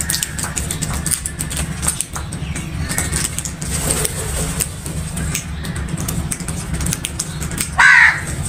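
House crows pecking corn off concrete, beaks clicking on the hard floor, with one loud, short caw near the end and fainter calls in between. A steady low rumble runs underneath.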